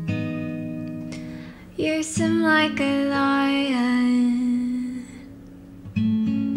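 Background music: an acoustic guitar chord rings out and fades, then a sung melody with gliding pitch comes in, and another guitar chord is strummed near the end.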